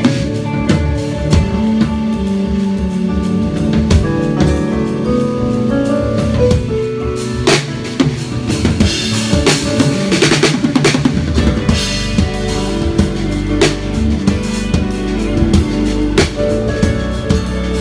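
Live band playing: an acoustic drum kit with bass drum, snare and cymbals over held keyboard chords. From about seven seconds in the playing gets fuller, with heavier low notes and ringing cymbal crashes.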